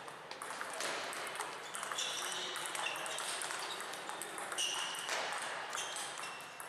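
Table tennis ball bouncing off paddles and table during a rally: a quick, irregular series of short, sharp pings.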